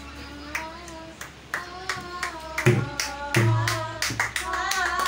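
Voices singing a song together with rhythmic hand clapping, two to three claps a second, and two low thumps near the middle.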